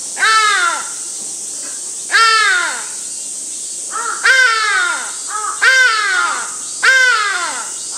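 Hadada ibis calling very loudly: five harsh calls, each falling in pitch, one every one to two seconds, some with a short softer note just before.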